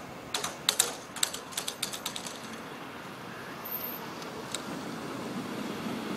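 Level-crossing boom barriers clattering as they come to rest at the bottom of their travel: a quick run of sharp mechanical clicks that thins out over about two seconds. Near the end a car is heard drawing up to the closed crossing.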